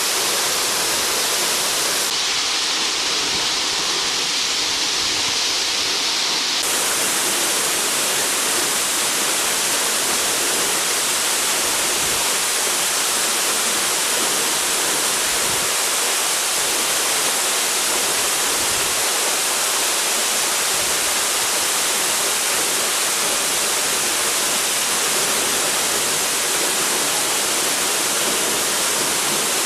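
Waterfall: the steady, loud rush of falling water, with a slight change in its tone between about two and seven seconds in.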